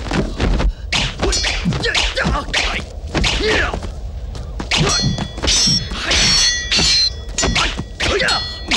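Sword-fight sound effects: a rapid run of blade clashes and hits, several ringing metallically, with a short lull a little past the middle before the clashes resume.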